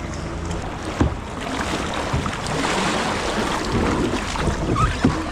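Sea water washing and splashing around a kayak in choppy waves, with wind buffeting the microphone. There is a louder rush of water in the middle and two sharp knocks, one about a second in and one near the end.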